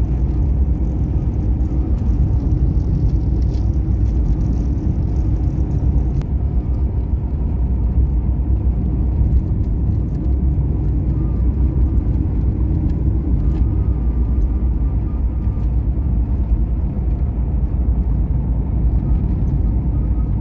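Car driving along a road: steady low rumble of engine and tyres.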